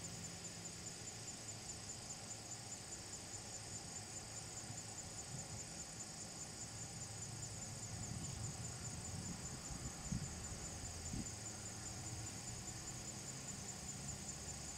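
Steady, high-pitched chorus of insects in the trees, a fine rapid pulsing trill that never lets up. A few low thumps come in the middle, the loudest about ten seconds in.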